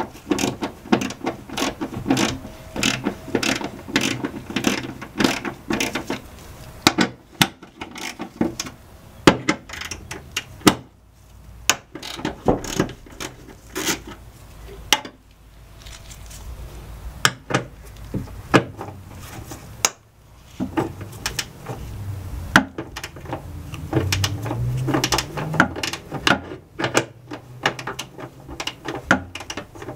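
Hand ratchet wrench with an extension clicking in quick runs, with short pauses between runs, as it backs out the 10 mm bolts of the cowl top panel.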